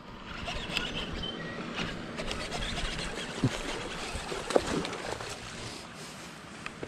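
A hooked smallmouth bass being reeled in on a baitcasting reel and landed: reel cranking, water splashing and handling noise, with scattered short clicks and knocks.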